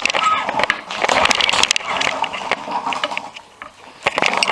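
Craftsman push mower being pull-started one-handed: the recoil starter cord pulled and the engine cranking with a rattling noise. The noise dies away about three and a half seconds in and starts again with another pull near the end; the engine does not keep running.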